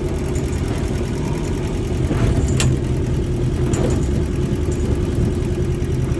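Sailboat's engine running steadily under way, with a couple of light clicks about two and a half and four seconds in.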